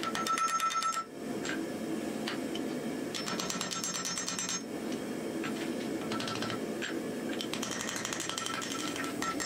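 Hand hammer striking a handled top tool held on a red-hot steel axe head on an anvil, in quick runs of blows with a bright metallic ringing. There are three runs: near the start, around the middle and near the end, with scattered single knocks between.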